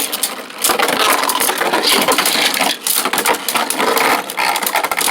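Five Beyblade spinning tops whirring and colliding in a plastic Beyblade stadium: a dense, steady grinding hiss full of rapid clacks as the tops strike each other and the stadium wall.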